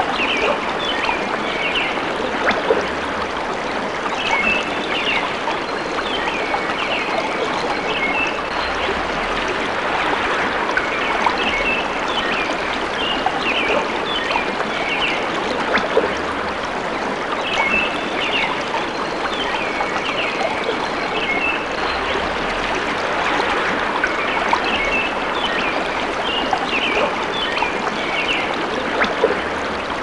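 Stream babbling steadily, with birds chirping in short runs of high notes every few seconds.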